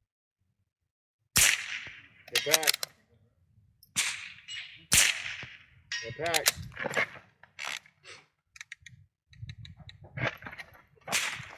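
Rimfire precision rifle firing sharp single shots a few seconds apart during a timed stage, with smaller clicks between the shots.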